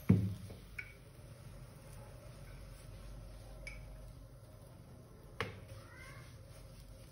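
Roti dough being rolled out with a rolling pin on a marble counter: one dull thump right at the start, then quiet rolling with a few sharp clicks, one about a second in and a louder one near the end.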